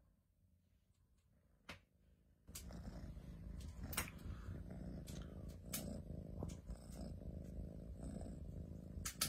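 Domestic cat purring steadily close to the microphone, starting about two and a half seconds in, with a few light clicks over it.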